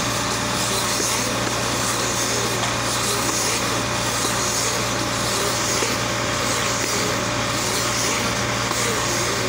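MP2000 Compact silage baler-wrapper running steadily as it wraps a round bale of chopped silage in stretch film: a constant machine hum with a swish that comes round about once a second.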